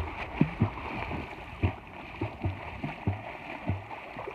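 A swimmer kicking and stroking through the water, with steady splashing and about seven irregular dull thumps as the feet and arms slap the surface.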